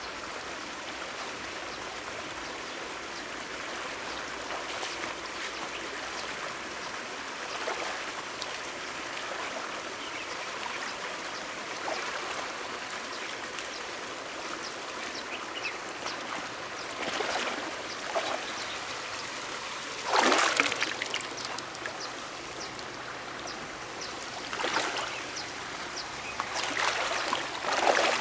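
River water flowing steadily, with scattered splashes; the loudest comes about twenty seconds in, and a few more come near the end.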